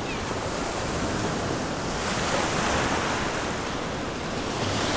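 Gulf surf washing around a wader standing in the water, swelling as each wave passes, with wind buffeting the microphone.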